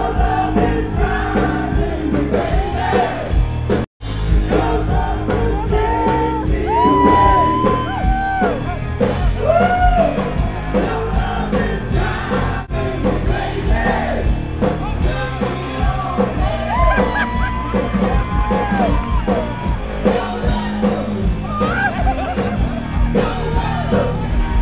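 Loud live band music with singing, held sung notes rising and falling over the band, and a little crowd shouting. The sound drops out for an instant about four seconds in.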